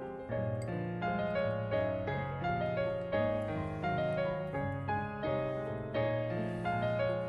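Background piano music: a gentle melody of struck notes, a few a second.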